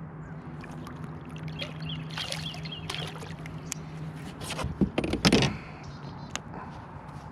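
Water splashing and handling noises beside a kayak as a small bass is brought aboard by hand, loudest about five seconds in, over a steady low hum.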